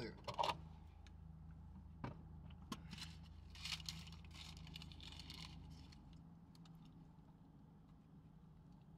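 A few light knocks and clicks as a plastic water bottle is set down, then paper wrapping crinkling as wrapped food is unwrapped. A low steady hum runs underneath and stops about two-thirds of the way through.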